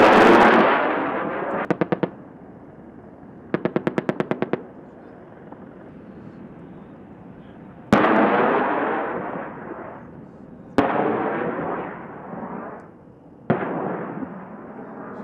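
Apache attack helicopter weapons fire on a range: four sharp blasts, each rolling away in a long rumble, with two short bursts of rapid cannon fire between the first two, the longer burst at about ten rounds a second.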